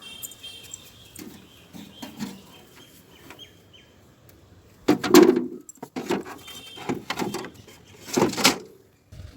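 Two loud bouts of knocking and clatter, about five and eight seconds in, like things being handled and set down. Birds chirp faintly in the first three seconds.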